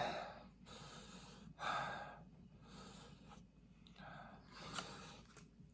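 A person breathing hard in and out through the mouth, short puffs about once a second, after eating very hot spicy noodles.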